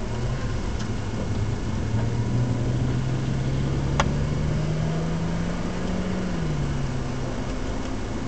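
BMW 135i's N54 twin-turbo inline-six heard from inside the cabin, its note climbing steadily under acceleration and then falling away about six seconds in, over steady tyre and road noise. A single sharp click comes about four seconds in.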